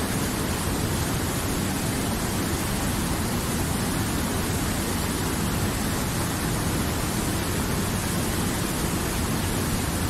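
Steady, unbroken rushing noise with no separate events, heaviest in the low end.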